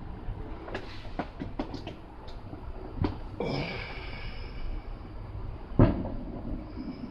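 Sleeper snoring: one noisy breath about halfway through, among scattered light clicks, with a sharp knock near the end.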